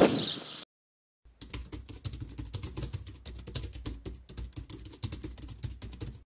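Keyboard typing sound effect: a quick, irregular run of key clicks lasting about five seconds, starting a little over a second in and stopping abruptly. Before it comes a short burst of outdoor sound with a loud bump right at the start, cut off after about half a second, then a brief silence.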